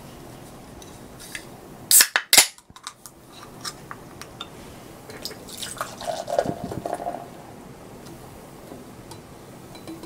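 Glass and tableware being handled close to the microphone: two loud sharp clicks about two seconds in, then scattered light clinks and a short stretch of liquid trickling and dripping near the middle.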